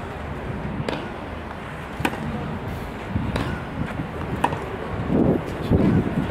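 Tennis balls struck by rackets in a clay-court rally: sharp pops about once a second as the players trade groundstrokes. Low muffled rumbles sit underneath.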